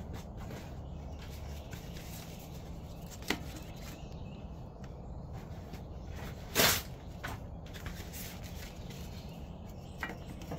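Steady low hum of a running fan, with a sharp click about three seconds in, one brief louder burst of noise about two-thirds of the way through, and a couple of fainter clicks.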